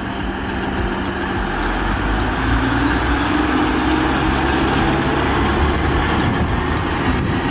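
Red DB Regio regional train of single-deck coaches rolling past: a steady rumble of wheels on rail that grows louder over the first second or two, then holds.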